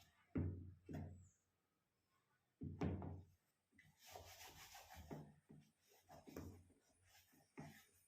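Shoes being handled during cleaning: a few dull thumps in the first three seconds, then a stretch of irregular rubbing and scrubbing against the shoe.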